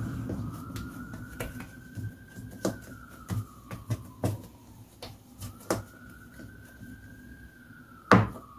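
Knife cutting a log of dough into portions on a kitchen worktop: scattered light taps and handling noises, then a sharp knock about eight seconds in as the blade strikes the worktop. A faint high tone slowly rises and falls twice in the background.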